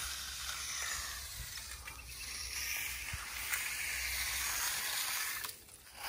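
Long-handled steel stick trowel sliding over a fresh, wet concrete slab, a steady soft hiss with a few faint clicks. The sound drops away just before the end.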